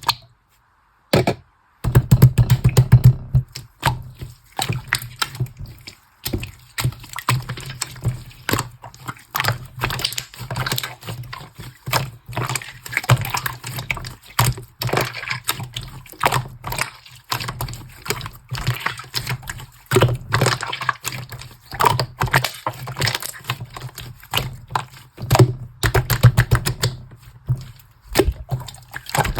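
Slime being squeezed and worked by hand, giving rapid runs of sticky clicks and crackling pops of trapped air, with short pauses between handfuls.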